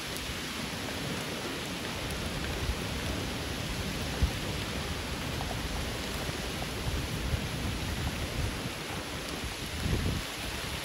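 Heavy rain pouring steadily, a dense even hiss, with a low rumble swelling near the end.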